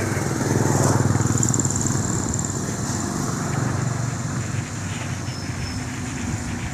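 Small motorcycle engines running past on the road, loudest about a second in and swelling again a few seconds later.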